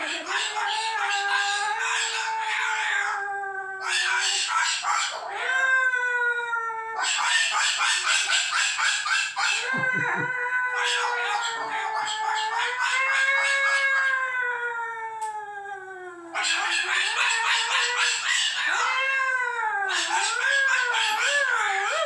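Moluccan cockatoo vocalising in long, drawn-out calls that slide up and down in pitch, with a rough, hissy edge in several stretches. Near the end the pitch wobbles quickly up and down.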